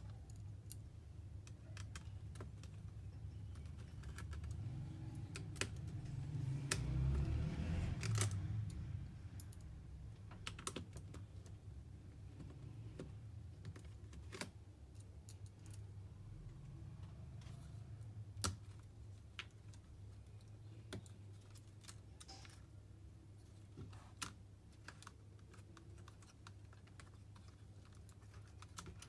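Scattered small clicks and taps of a screwdriver and tweezers on a laptop's screws and plastic-and-metal chassis as its motherboard screws are undone, with a louder stretch of handling noise about six seconds in, over a steady low hum.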